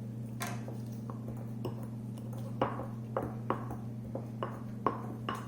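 Light knocks of a wooden garlic-press masher against a bowl as roasted eggplant is pressed and mashed: a few scattered ones at first, then about two a second. A steady low hum runs underneath.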